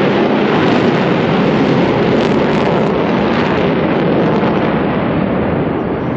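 Jet aircraft roar, loud and steady, easing off slightly near the end.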